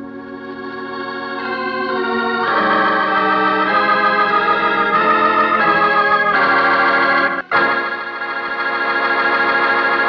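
Organ music cue closing a radio-drama scene: sustained chords that swell up and change every second or so, a short break about seven and a half seconds in, then a final held chord.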